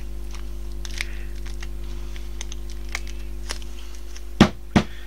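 Gloved hands handling a glass candle jar and pushing wax decorations into its whipped-wax topping: a few light clicks and taps, then two sharper knocks close together near the end, over a steady low hum.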